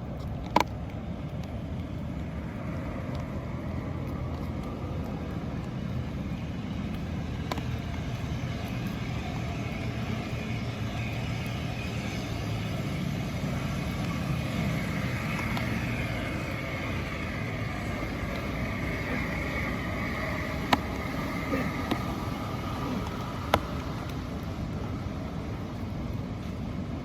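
Steady road traffic noise: passing vehicles and tyre hiss, with one car swelling and fading away from about ten to twenty seconds in. A few sharp clicks stand out, one right at the start and three close together near the end.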